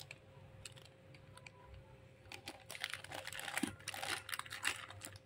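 Clear plastic bags crinkling and rustling in the hands as the bagged metal ball joints inside are turned over, a scatter of small crackles that is sparse at first and gets busier about halfway through.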